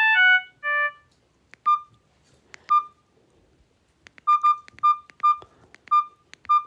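A mobile phone's short electronic melody ends about a second in, followed by a string of short, identical beeps from its keypad as buttons are pressed one after another, coming faster in the last few seconds.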